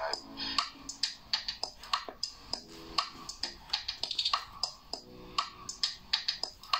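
Quiet passage of background music: many sharp, irregular clicks with a few faint low notes now and then.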